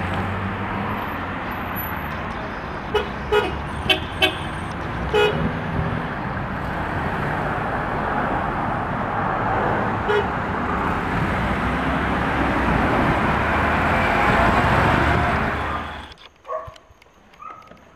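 Road traffic noise, growing louder toward the end, with several short car-horn toots a few seconds in and one near the middle; it cuts off abruptly near the end.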